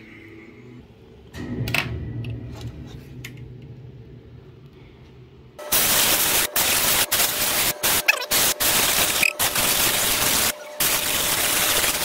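Can of compressed air blowing through its straw nozzle in loud hissing bursts with short breaks, blasting dust out of a PC case's mesh fan filter. It starts about halfway through, after a few light knocks.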